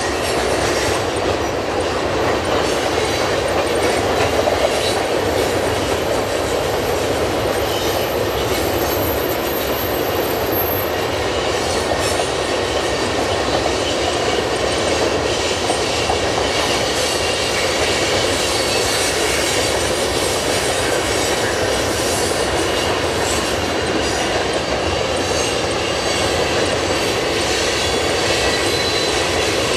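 Long string of freight tank cars rolling past, a steady noise of steel wheels on rail, with a faint high whine during the first ten seconds or so.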